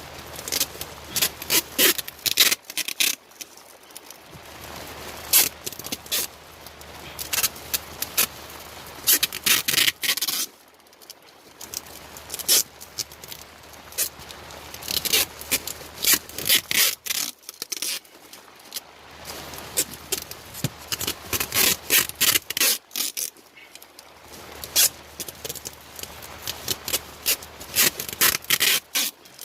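Duct tape pulled off the roll in repeated crackling, ripping runs and pressed around the joint of a flexible air duct to seal it, with rubbing and scraping between the runs and brief pauses every several seconds.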